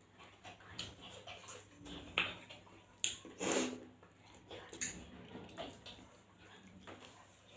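Close-up eating sounds: wet chewing and lip smacking as a person eats rice, curry and boiled egg by hand, with fingers working food on a steel plate. A string of irregular short sounds, the loudest about three and a half seconds in.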